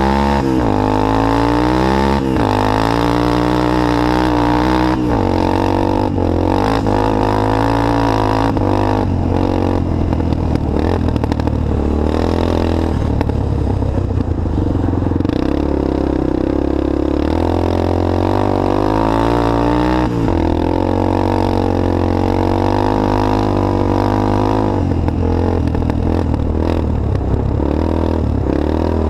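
Engine of an off-road racing machine at full effort on an ice track, revving up and dropping back again and again, its pitch rising and falling every second or two. Rattling clatter comes through in the middle stretch and again near the end.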